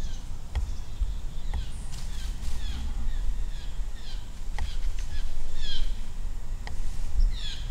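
Small birds chirping: many short, high notes that slide downward, repeated through the whole stretch, with a few sharp clicks. A steady low rumble sits underneath.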